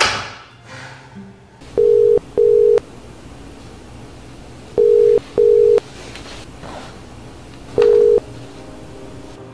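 Ringback tone of an outgoing video call placed from a laptop: steady electronic double beeps, two pairs a few seconds apart and then a single beep, while the call rings unanswered.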